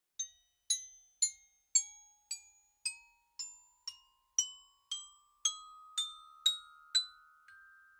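Intro music of single bright, bell-like struck notes, about two a second, each ringing out and fading before the next.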